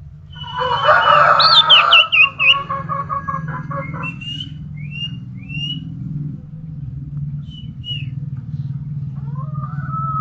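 Common iora (cipoh) calling: a loud jumble of chirps and rapid repeated notes in the first couple of seconds, then scattered short upslurred chirps, and a drawn-out whistle near the end. A steady low hum runs underneath.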